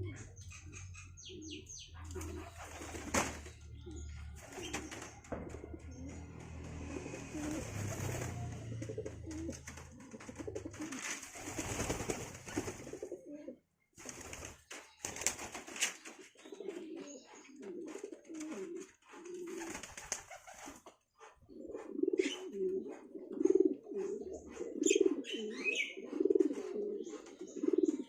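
Domestic pigeons cooing, the coos coming in a steady repeated run in the last third, with wing flapping and a few high bird chirps near the end.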